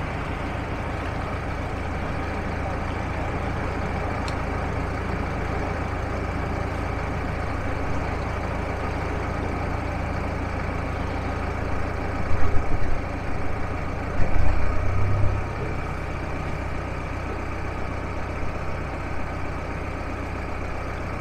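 Narrowboat's diesel engine running steadily under way, a low pulsing drone. A few seconds of louder low rumbling come just past the middle, after which the engine note shifts slightly.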